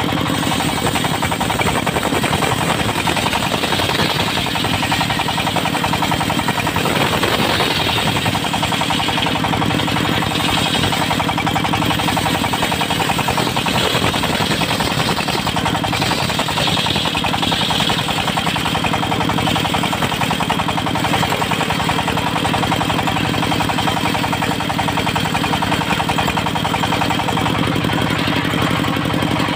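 Portable circular-saw sawmill running steadily, its engine beating in a rapid, even knock, with a brighter saw noise that swells at times.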